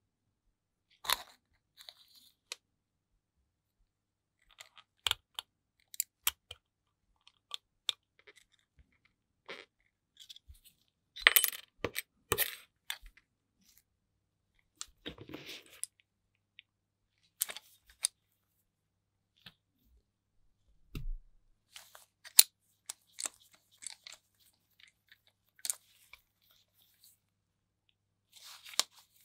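Small tools handled on a tabletop: scissors snipping transfer paper on a metal plate, then steel bar clamps clinking and clicking as they are handled and adjusted. Scattered sharp clicks and light metallic clinks, with a loudest cluster about eleven to twelve seconds in.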